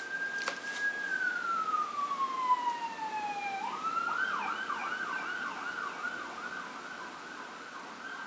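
Emergency vehicle siren going by: a long wail that holds high, then falls over a couple of seconds. It switches to a fast yelp of about four sweeps a second, then settles back into a steady tone that fades toward the end.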